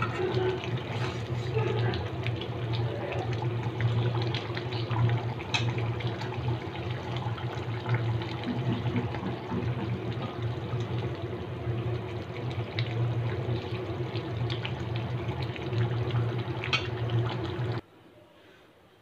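Pigeon curry bubbling in a metal wok over a gas burner, with a metal spatula scraping and clicking against the pan as it is stirred. The sound cuts off suddenly near the end.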